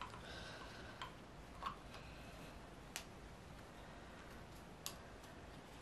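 Quiet background with a handful of faint, scattered clicks and taps: small parts being handled as the reflector and its rubber boot are worked out of a chrome motorcycle indicator housing.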